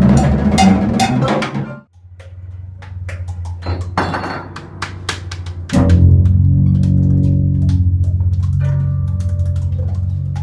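Live jazz. Busy drumming on drum kit cuts off abruptly about two seconds in. A low steady drone with scattered light percussion taps follows, and about six seconds in a louder band of low held notes comes in.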